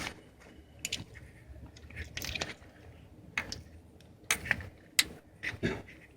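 Irregular metal clicks, taps and light scrapes of hand tools working a small bolt loose. The two sharpest knocks come about four and five seconds in.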